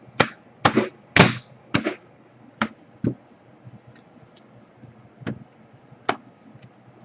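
Laptop bottom cover being pressed and snapped into place on the chassis: a series of sharp clicks and knocks, several close together in the first two seconds, then a few spaced out.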